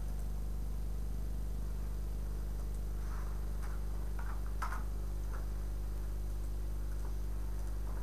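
Steady low electrical hum, with a few faint short clicks and ticks about three to five seconds in.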